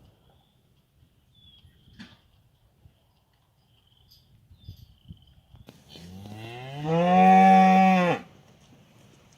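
A cow moos once, a loud call about two seconds long starting around six seconds in. It rises in pitch and then holds steady before cutting off.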